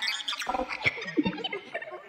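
Sound-effect alien creature voices: a rapid, jumbled chatter of short voice-like chirps and gliding squeaks, with quick clicks between them and a gargling quality.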